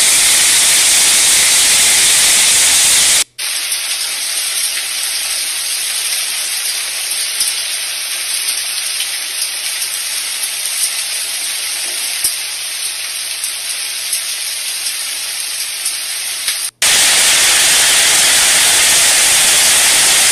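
Hail and rain pelting down hard in a hailstorm: a dense, steady hiss. About three seconds in it cuts out briefly and returns thinner, with scattered sharp ticks of hailstones striking, then the fuller hiss comes back near the end.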